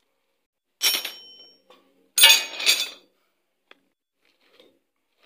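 Small metal parts and tools clinking and clattering on a work surface: one sharp clatter about a second in that rings briefly, a longer double clatter a second later, then a single light tick.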